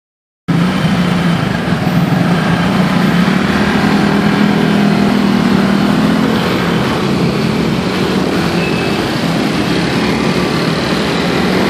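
Motor scooter and heavy city traffic: a steady engine hum for the first half, then a broader mix of engine, road and wind noise as the scooter gets moving among other scooters.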